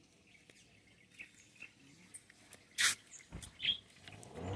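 A few faint, short bird chirps scattered through the quiet, with one brief hissy burst just under three seconds in.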